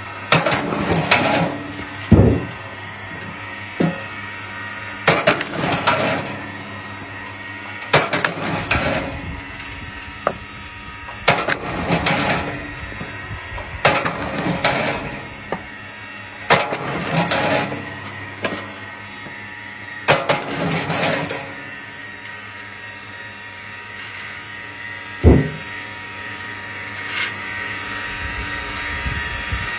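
Motor-driven log splitter running with a steady hum while logs are forced through its steel wedge. Each split gives a sharp crack and a clatter of falling firewood, about every three seconds.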